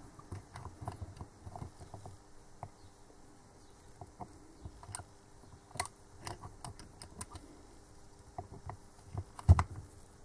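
Small irregular metallic clicks and taps as a Delphi common-rail injector control valve, held in a hand-held aluminium holder, is turned and pressed against its steel fixture, with a sharper knock about nine and a half seconds in.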